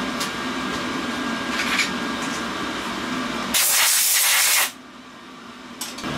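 Steady hum of the milling machine, then about three and a half seconds in a loud hiss of compressed air from an air-hose nozzle lasting about a second, blowing brass chips off the milled part. The hum is much quieter after the blast.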